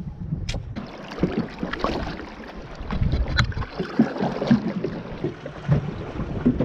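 An inflatable dinghy being rowed: oars dipping and splashing with small irregular knocks, and wind buffeting the microphone.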